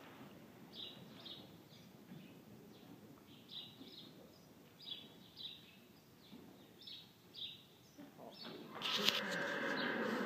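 Small birds chirping: short, high chirps, singly or in quick pairs, every second or so. About nine seconds in, a loud burst of noise cuts in and carries on to the end.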